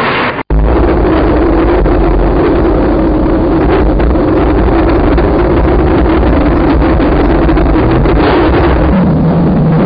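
A car engine running hard at high revs as the car speeds across the ground and up a ramp into a jump, a steady drone over rushing noise. The sound cuts out for an instant about half a second in, and the drone drops lower in pitch near the end.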